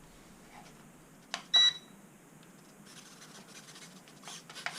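A click followed by a single short high beep from an RC transmitter, the kind it gives when switching between low and high control rates, with a few faint clicks near the end.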